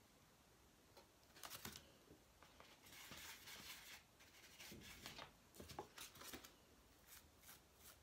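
Faint, quick flicks of a toothbrush's bristles being snapped with a thumb to spatter paint, with a short scratchy rub of the brush in the paint midway.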